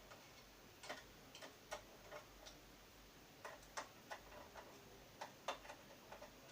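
Irregular light clicks and taps of small plastic and metal parts being handled and unclipped as a printer touch-panel unit is taken apart and its cable connector removed.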